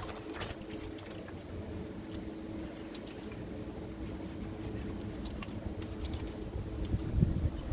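Hands being washed over a bucket: wet, soapy hands squishing and rubbing together, with water dripping. A steady low hum runs underneath.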